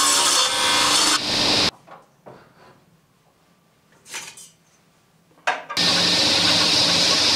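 Background music that breaks off about a second and a half in, leaving about four seconds of near quiet with faint scrapes and knocks of a heavy oak beam sliding on a table-saw table, then starts again.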